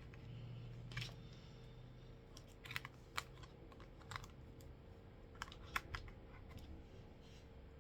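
Faint, irregular light clicks and taps, about eight of them spread unevenly, over a faint steady hum.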